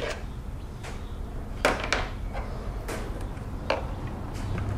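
Scattered light clicks and knocks as hands work the plastic air filter housing of a BMW E90 loose after its bolts are out, over a low steady hum.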